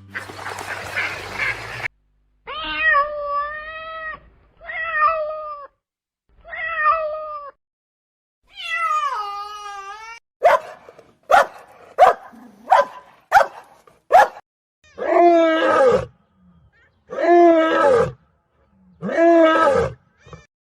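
Cat meowing over and over in separate calls: a few mid-length meows, a falling one, a quick run of short sharp ones, then longer meows that drop in pitch at the end. A short hissing noise comes before the first call.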